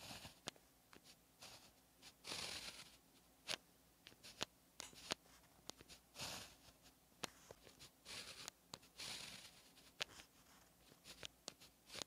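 A fine-tipped pen writing Chinese characters on paper: faint scratchy strokes as the tip drags across the sheet, with sharp little ticks where it touches down and lifts off for short strokes and dots.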